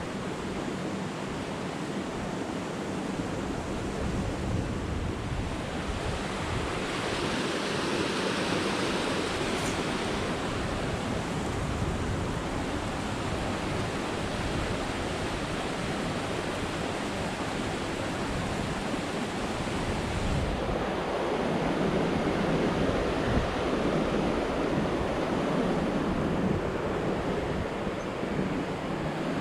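Rushing water of a small waterfall running under and around ice, a steady even rush, with wind buffeting the microphone.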